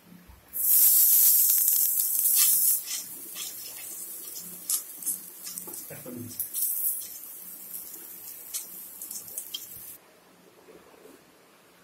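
Grated coconut tipped into hot oil in a non-stick pan, hitting with a loud sizzle about half a second in. It then sizzles more quietly, with scrapes and crackles from a wooden spatula as it is stirred, and stops suddenly near the end.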